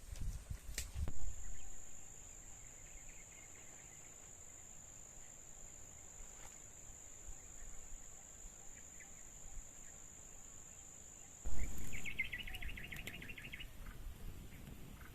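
An insect's steady, high-pitched buzz that cuts off suddenly about twelve seconds in. Two knocks break in, one about a second in and a louder one just before the buzz stops, and the second is followed by a short rapid trill.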